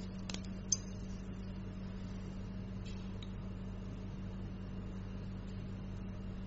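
Steady low hum of operating-room equipment, with a few light metallic clicks of steel surgical instruments, a needle holder and forceps, working a skin suture; the sharpest click comes under a second in, and fainter ones around three seconds.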